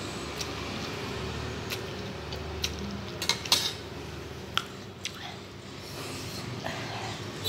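Metal spoon and fork clinking against a ceramic bowl as they are set down in it: a few separate sharp clinks, the loudest cluster about three and a half seconds in.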